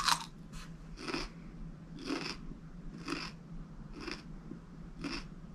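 Person biting into a slice of raw radish with a sharp crack, then chewing it, about one chew a second.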